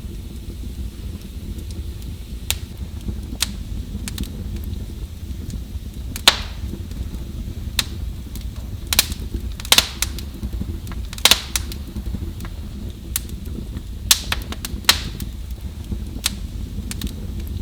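Wood fire in a fireplace crackling: irregular sharp pops and snaps, more than a dozen, over a steady low rumble of the burning fire.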